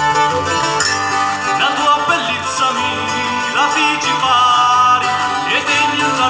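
Live folk band playing an amplified tune on accordion, guitars and electric bass.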